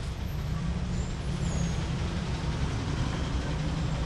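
Road traffic: a steady low engine rumble under a continuous wash of street noise.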